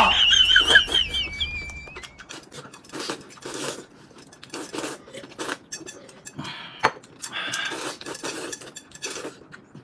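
Chopsticks clicking against a porcelain bowl, with short slurping and gulping sounds as noodles are eaten and broth is drunk from the bowl. It opens with a short, high-pitched laugh in the first second or so.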